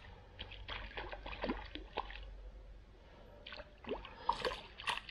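Small irregular splashes and drips at the water's surface as a hooked perch thrashes on the line.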